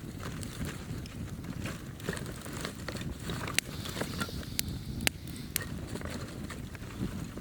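Wood campfire crackling, with a few sharp pops standing out from about the middle over a steady low rumble of the burning fire.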